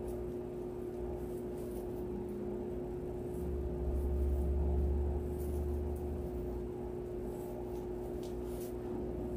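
Deco mesh rustling and crinkling in short bits as it is ruffled and twisted into ties, over a steady electrical hum. A low rumble swells for a couple of seconds in the middle.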